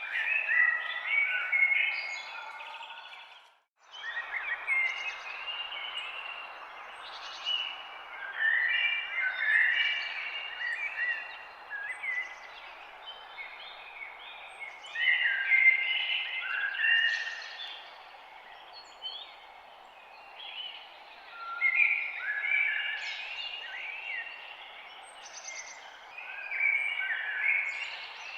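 Several songbirds singing, with bursts of chirping phrases every few seconds over a steady background hiss of forest ambience. The sound cuts out briefly about four seconds in.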